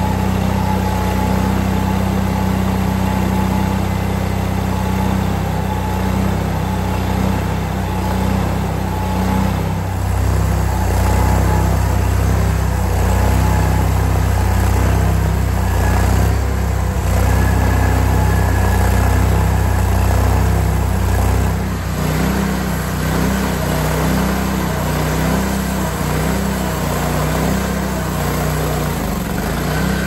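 Hud-Son Oscar 52 portable bandsaw mill sawing a large sugar maple log: its engine runs steadily under load while the band blade cuts through the hardwood, with the engine note shifting slightly about two-thirds of the way through.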